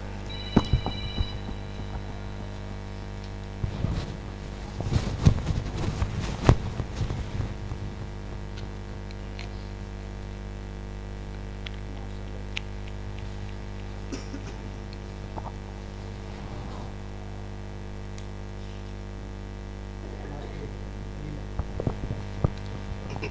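Steady electrical mains hum from a live sound system's microphones and loudspeakers, with scattered knocks and bumps of a microphone being handled. The bumps are loudest about four to seven seconds in and come again near the end.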